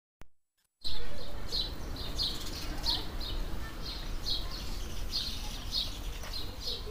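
A bird chirping over and over, short high chirps about twice a second, over a low steady rumble of street background that starts about a second in.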